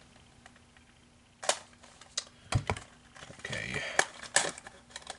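Hands opening the packaging of a 1:64-scale diecast car: scattered sharp clicks and rustles, with a louder knock about two and a half seconds in.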